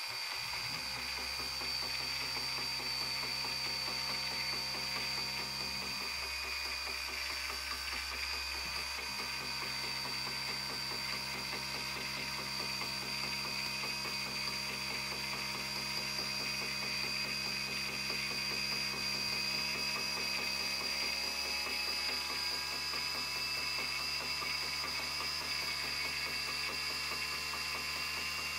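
Walking Cube robot's electric motor and gear drive running steadily, a mechanical whirring with a high whine. The whine climbs slightly in pitch over the last part as the supply voltage is turned up.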